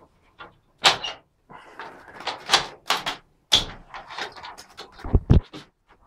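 Wooden balcony window being opened: a run of knocks, rattles and scrapes from the sash and its latch, with two dull thumps near the end.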